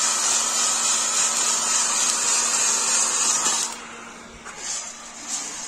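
A 1000-watt heat gun blowing with a steady hiss and hum, while a cordless electric screwdriver turns a flour-sifter drum of roasting coffee beans. About two-thirds of the way through the sound drops much lower, with a few soft knocks.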